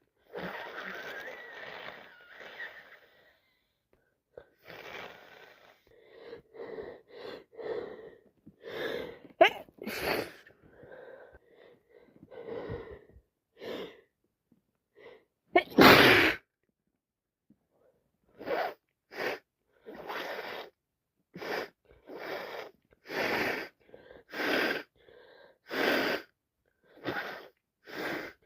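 A person sneezing over and over in an allergy fit: many short sneezes one after another. The loudest comes about halfway through, and near the end they fall into an even run of roughly one a second.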